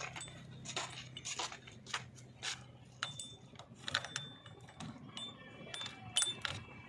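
Scattered small mechanical clicks and clinks at an irregular pace, over a low steady hum that fades out about three seconds in.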